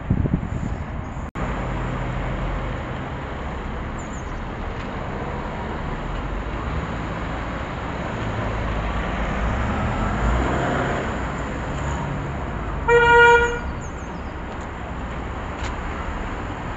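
Road traffic passing, with a car swelling past about ten seconds in and one short car horn toot about thirteen seconds in, the loudest sound.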